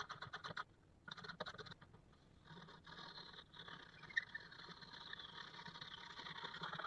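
A woodworking hand tool scraping across wood. It starts as a fast run of rapid ticks, pauses briefly, then turns into a steadier scraping that grows louder toward the end, with a short squeak about four seconds in.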